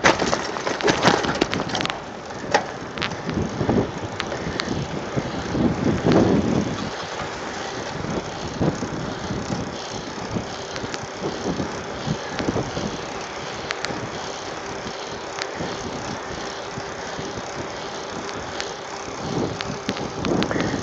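Mountain bike rolling over a railway level crossing, its frame and parts rattling and knocking over the rails and rough concrete for the first several seconds. It then rolls on smooth asphalt with a steadier rush of tyre and wind noise and only occasional knocks.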